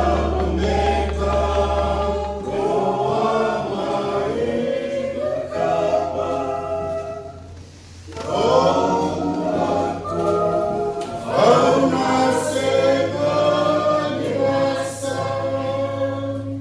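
Choral music: voices singing together over sustained low bass notes, dropping away briefly about eight seconds in before the singing comes back in full.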